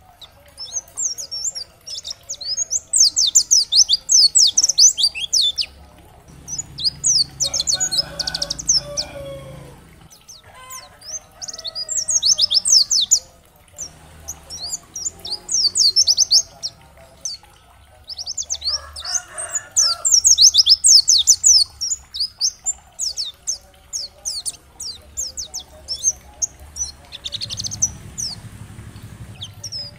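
White-eye (pleci) singing: bursts of rapid, high-pitched twittering chirps in phrases of one to three seconds, repeated after short pauses.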